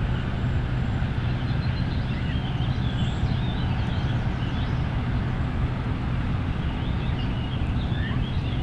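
Small birds chirping and singing over a steady low engine-like hum.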